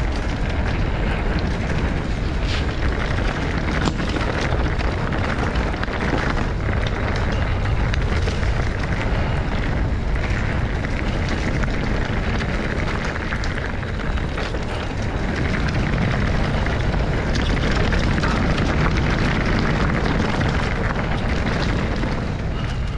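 Strong wind buffeting a GoPro's microphone: a loud, steady rushing rumble with no let-up.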